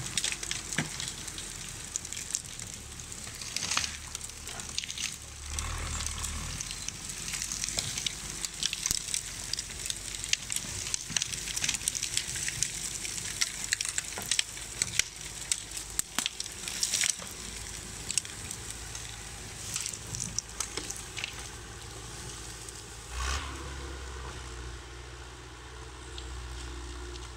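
Irregular crunching and crackling underfoot over brush and frozen snow. An LKT 80 skidder's diesel engine runs low underneath and grows louder near the end.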